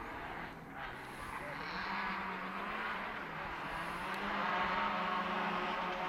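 Subaru Impreza WRX STI rally car's turbocharged flat-four engine running as the car approaches, growing steadily louder over the first four seconds or so.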